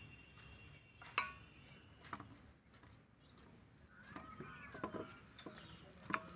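Scattered faint clinks and knocks of a steel plate as dough is kneaded in it by hand, with one sharper clink about a second in. A brief high warbling call sounds about four seconds in.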